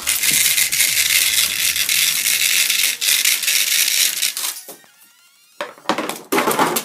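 Strands of plastic and metal bead necklaces rattling as they are dragged up and over the rim of a plastic bowl, a continuous clatter for about four and a half seconds over faint background music. After a short lull, two brief bursts of clatter come near the end.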